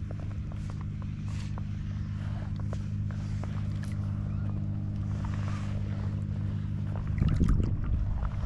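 Spinning reel being cranked steadily on a lure retrieve, a low even hum with faint ticks. About seven seconds in the hum stops and a louder, irregular low rumble of water and movement takes over.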